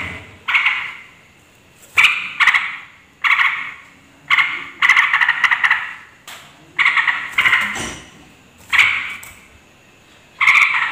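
Yellow-vented bulbul calling noisily: a series of about ten short bursts of chattering calls with short pauses between them.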